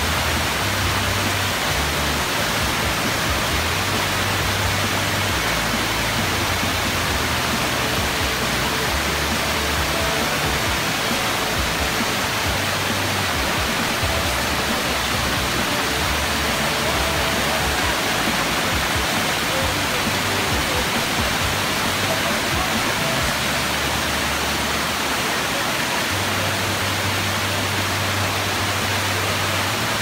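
Waterfall cascading over a sloping rock slab into a pool: a steady, unbroken rush of water.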